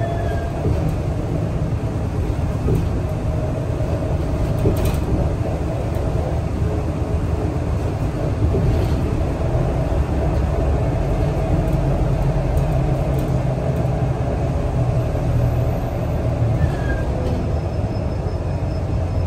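Scania L94UB city bus heard from inside its saloon while driving: a steady engine and drivetrain drone with road noise and a faint steady whine over it. A short knock or rattle sounds about five seconds in.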